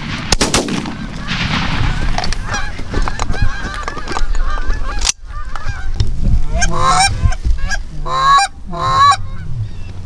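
Two shotgun shots right at the start, followed by Canada geese honking, many calls overlapping, with louder honks near the end.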